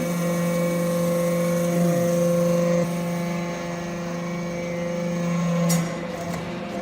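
Scrap metal chip baler running with a steady machine hum, easing slightly about halfway through, with a brief click near the end.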